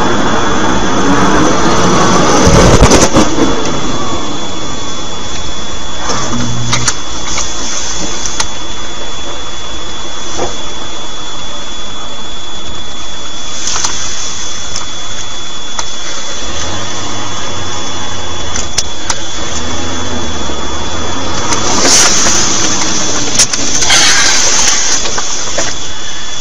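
Steady engine and road noise heard inside a moving vehicle, with a thin, steady high whine throughout. A loud low thud comes about three seconds in.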